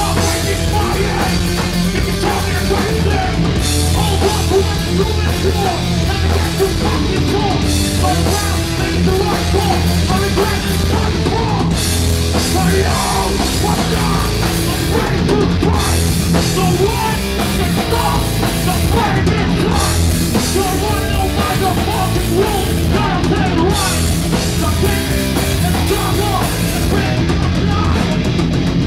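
Hardcore band playing live and loud: distorted electric guitar and bass over a pounding drum kit, with shouted vocals.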